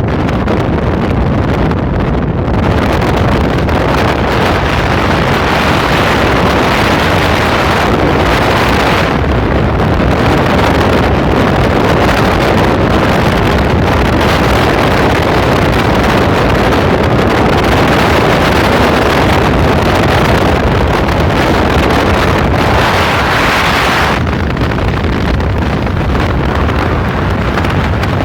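Steady loud rush of wind on the microphone together with a moving vehicle's road noise. It swells a little brighter a few seconds in and again near the end.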